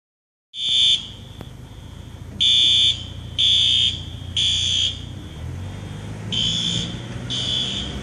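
Electronic fire alarm horn beeping in the temporal-three pattern: three half-second high-pitched beeps a second apart, a pause of about a second and a half, then three more. It is a sprinkler alarm sounding the building's evacuation signal, heard over the low rumble of a passing car.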